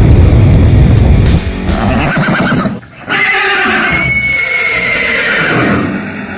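A deep boom rumbling away, then a horse whinnying loudly, in two wavering calls with a short break between them, the second longer and fading out, over music.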